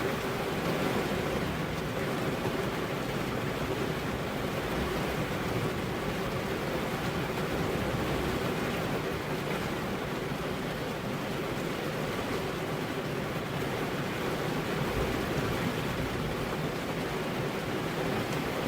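Heavy rain falling steadily, a dense even hiss with no thunder.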